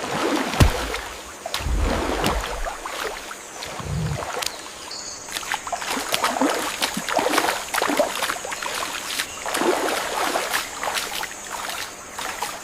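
Water splashing and sloshing in irregular strokes, with a few deeper thumps near the start and a faint steady high-pitched whine throughout.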